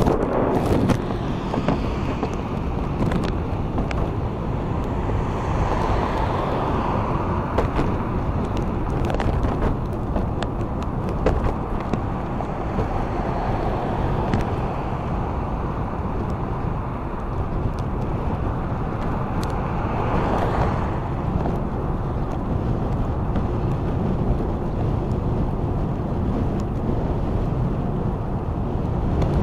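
Steady wind and road noise on the microphone of a vehicle riding at about 15 to 20 mph in wind and rain. The noise swells about six seconds in and again around twenty seconds in, with scattered faint ticks.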